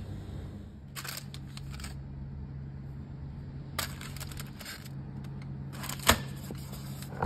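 Crumpled aluminium foil crinkling in three short bursts as stuffed peppers are set down on the foil lining of an air fryer basket, with a sharp click about six seconds in. A steady low hum runs underneath.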